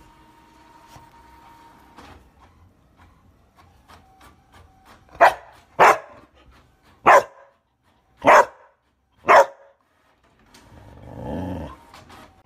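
A dog barks five times, loud single barks about a second apart, then gives a low growl near the end.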